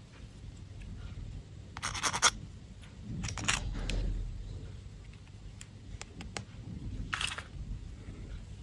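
Candy wrapper being handled and opened: three short bursts of crinkling, about two seconds in, about three and a half seconds in, and near the end, with a few light clicks between.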